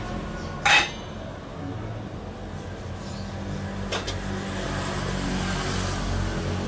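A utensil clatters sharply against a pot once as rice is scooped, with a lighter click about four seconds in. Under it a low engine hum grows louder.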